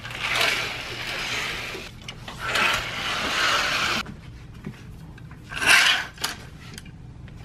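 Window curtains being pulled open by hand, the fabric rubbing and swishing as it slides. There are two long pulls of about two seconds each, the second stopping sharply, and a short one about six seconds in.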